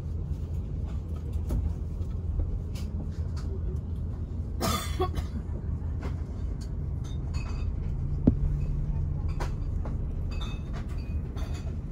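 Steady low rumble of an Airbus A330-900's cabin as the aircraft is pushed back on the apron, with scattered light clicks, a short louder noise about five seconds in and a sharp click a few seconds later.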